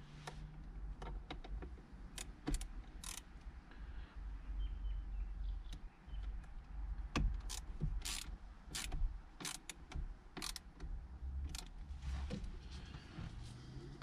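Irregular clicks, taps and short scrapes of small parts and hand tools being handled during steering wheel removal work, some sharper than others, with no steady rhythm.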